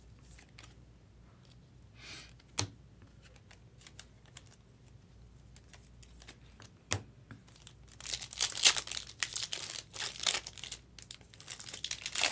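Trading-card pack wrapper being torn open and crinkled by hand, in a run of loud crackling from about eight seconds in. Earlier there is a quiet stretch broken by two sharp clicks.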